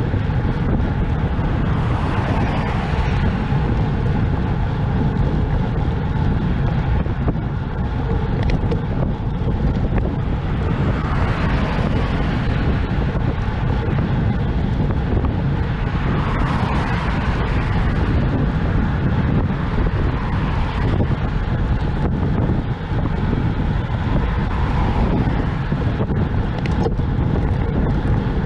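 Wind rushing over the microphone of a camera on a moving bicycle, with cars passing several times, each rising and fading.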